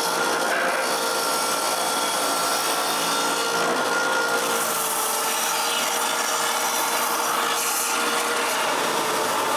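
Power sander running steadily with wood pressed against it, smoothing the rough cut corners of a wooden tray frame.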